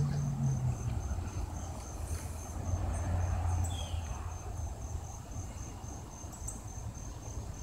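An insect, cricket-like, chirping steadily in a high-pitched pulse of about two chirps a second, over a low rumble.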